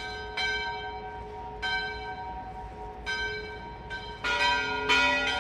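Bells ringing: repeated strikes, each leaving several lingering tones that overlap, with the strikes coming closer together and louder near the end.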